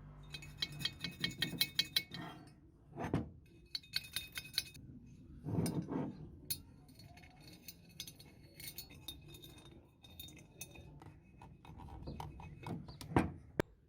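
Small metal parts clinking and ringing together as they are handled, in clusters of quick clicks, with a few dull knocks and scrapes between them.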